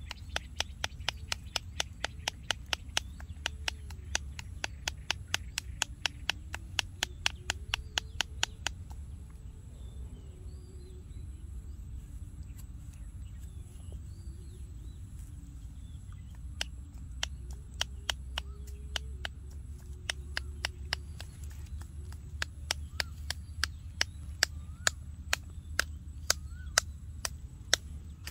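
Sharp clicks in a steady run, about four a second, that stop for several seconds midway and then come back more slowly. Faint, soft calls of a baby monkey are heard under them.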